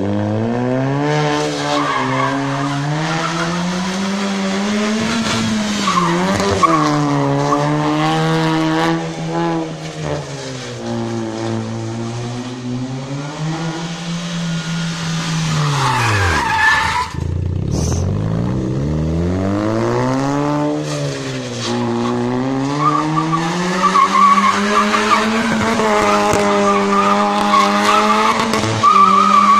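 Honda Brio's engine revving hard and held at high revs as the car slides through slalom turns, with tyres squealing and skidding on the asphalt. About halfway the revs fall sharply almost to idle, then climb again, with the tyre squeal strongest near the end.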